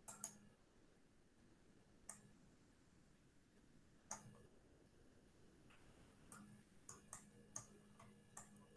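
Computer mouse clicking, sparse at first (about one click every two seconds), then a quicker run of about six clicks near the end, against near silence.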